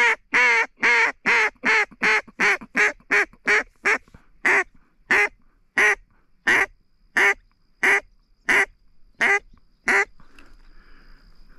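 Mallard duck call blown in a long run of about twenty loud hen quacks, quick at first and slowing toward the end, stopping about ten seconds in.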